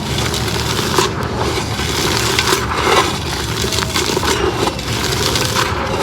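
A pink concrete pot being crushed and crumbled into pieces: continuous gritty crunching, with sharper cracks about a second in and again near three seconds.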